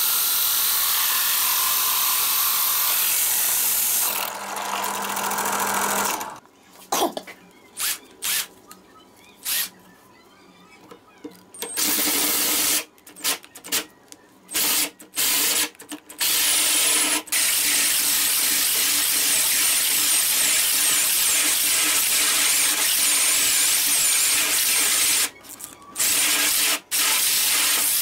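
Electric drill spinning a hole saw as it cuts through plywood. It runs in long steady stretches with a high whine, and in the middle it is started and stopped in many short bursts.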